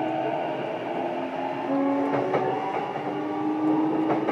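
JR East E233-7000 series electric train heard from inside a motor car while running: the inverter and traction motors give several steady tones that shift in pitch in steps. Wheels click over rail joints a few times, about two seconds in and near the end.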